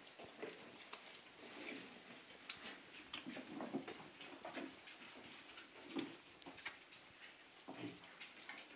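Piglets eating leafy feed: faint, scattered chewing and clicking, with a few brief soft grunts or snuffles.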